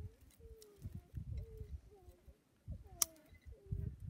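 A dove cooing repeatedly: short low notes with a slight downward bend, each repeating about every half second, over low rumbling noise. A single sharp click about three seconds in.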